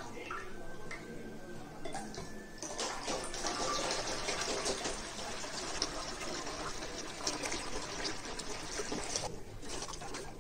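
Aquarium water running out of a siphon hose and splashing into a container, a steady gush that starts about three seconds in and breaks off briefly near the end.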